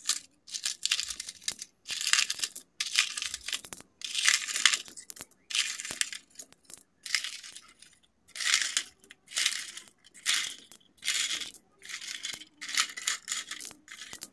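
Small polished pebbles clinking and rattling against each other as they are tipped out of a toy truck's bed onto a pile, in a string of short bursts, one or two a second.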